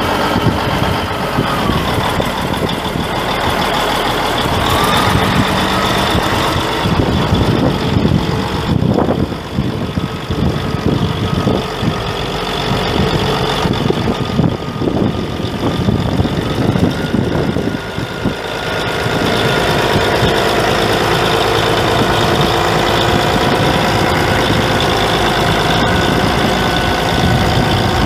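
Caterpillar 3406 six-cylinder diesel of a 1980 Steiger Panther III 4WD tractor running, with steady high whines over the engine note. The middle stretch is uneven with irregular knocks; the engine settles into steady, slightly louder running about two-thirds of the way through.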